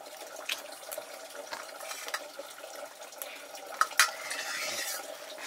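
Kitchen work: scattered clinks of pots and metal utensils over a bed of water sounds, with two sharp clinks about four seconds in.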